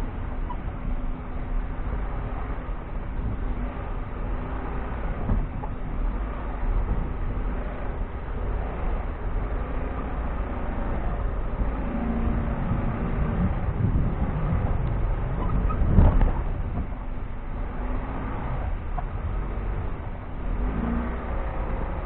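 T30 vehicle driving over a rough off-road track, its engine running steadily under load with rattles and knocks from the bumpy ground. The loudest is one sharp knock about 16 seconds in.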